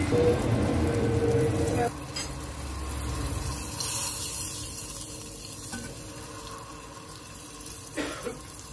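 A spoon stirring a sauce of oil, ground red pepper, mint and lemon juice, which sizzles; loudest in the first two seconds.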